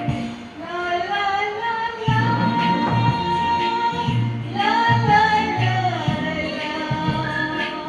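A woman singing a song into a handheld microphone over instrumental accompaniment with a repeating bass line, holding long, wavering notes.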